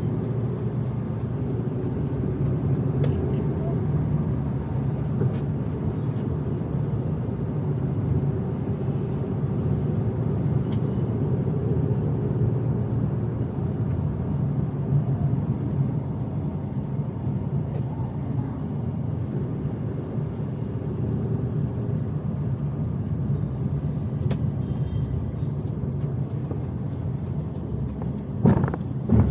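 Steady engine and road noise of a car driving through city traffic, with two sharp knocks near the end.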